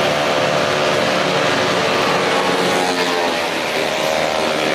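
A vehicle engine running steadily, its pitch sliding upward a little past the three-second mark.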